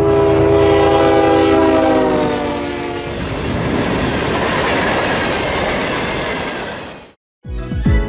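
A CSX diesel freight locomotive sounds its multi-tone air horn, and the chord drops in pitch as the engine goes by. Then comes the steady rolling noise of the freight cars passing, which cuts off suddenly about seven seconds in.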